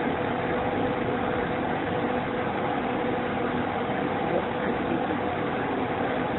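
Steady hum with a constant mid-pitched tone and an even noise under it, unchanging throughout.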